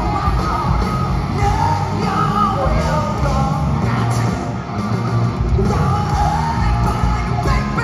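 Live rock band playing electric guitars, bass guitar and drums, with a singer singing over them.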